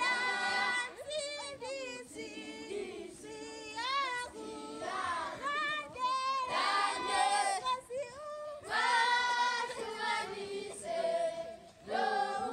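A group of schoolchildren singing together unaccompanied, in phrases with brief pauses between them.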